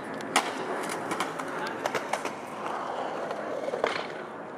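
Skateboard landing an ollie down a concrete stair set: a sharp clack of the board hitting the ground about half a second in, then the wheels rolling on concrete, with a few more clacks later.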